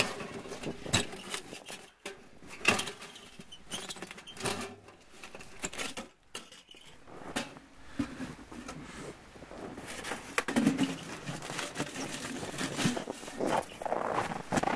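Sheet-metal woodstove pipe sections being handled and slid into one another: irregular metal clinks, knocks and scraping.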